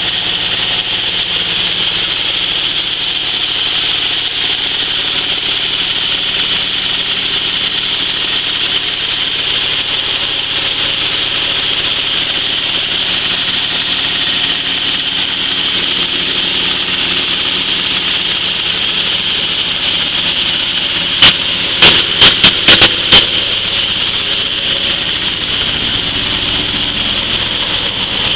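Iron dry-coffee huller running steadily, giving a constant mechanical noise with a strong hiss. About three-quarters of the way through comes a quick run of about six sharp clicks or knocks.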